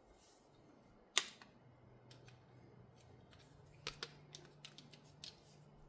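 Scattered sharp clicks and taps from hand tools and cable-repair parts being handled. The loudest click comes about a second in, a close pair near four seconds, then several lighter ticks, all over a faint steady hum.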